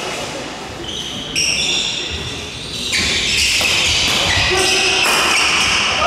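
Court shoes squeaking in short high squeals on a wooden indoor court floor as badminton doubles players move about in a rally; the squeals come thickest in the second half.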